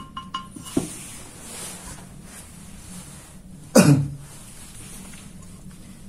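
A person coughs once, briefly, about four seconds in. Faint metallic clinks at the start as the steel plate is handled.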